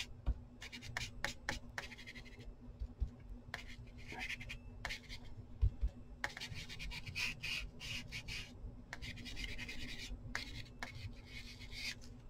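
Ink blending tool rubbed over the edges of paper scraps: a series of scratchy rubbing strokes, each about a second long, with small clicks and taps as it is loaded on the ink pad.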